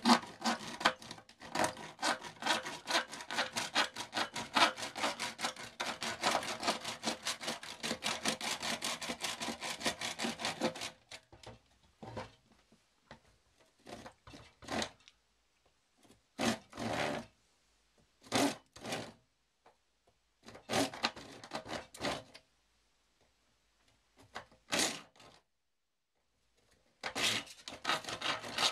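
Hand wood saw cutting through square white plastic downpipe: quick, steady back-and-forth strokes for about the first eleven seconds, then short bursts of a few strokes with pauses between them.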